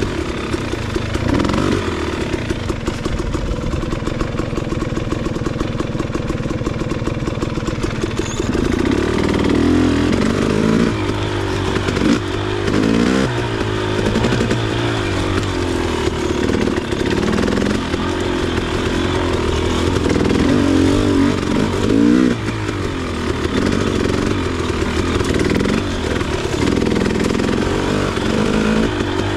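KTM 300 XC two-stroke dirt bike engine running at low, steady revs for about eight seconds, then revving up and down again and again.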